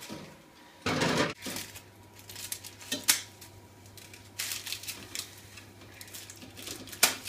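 A metal tray set down with a clatter on a gas stove grate about a second in, then kitchen scissors snipping and the baking-paper parcel crinkling as it is cut open, with a sharp click near the end.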